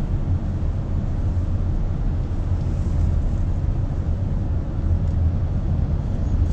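Steady low rumble of engine and road noise heard from inside a car's cabin.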